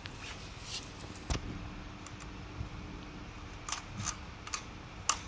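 Small metallic clicks and taps, about half a dozen spread irregularly, as the front-wheel axle fittings and springs are handled and fitted by hand at the hub of a fat-tire folding e-bike.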